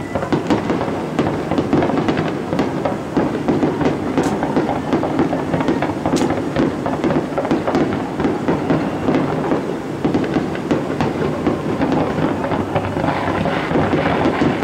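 Fireworks display going off in quick succession: a continuous dense crackling and popping, with a couple of sharper cracks about four and six seconds in.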